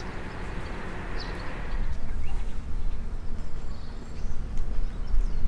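Wind buffeting the microphone outdoors as an uneven low rumble that grows louder about two seconds in, with a few faint bird chirps above it.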